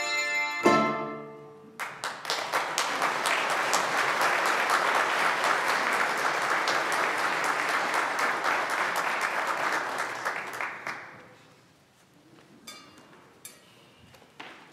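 The last chord of a piece of music dying away, followed by a congregation applauding for about nine seconds, the clapping fading out. A few faint knocks follow in the quiet.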